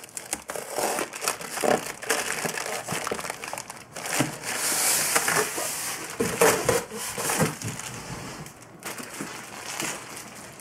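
Cardboard box and packaging being handled: crinkling, rustling and scraping with scattered knocks, including a longer hissing scrape about four seconds in, as the box is rummaged through and moved.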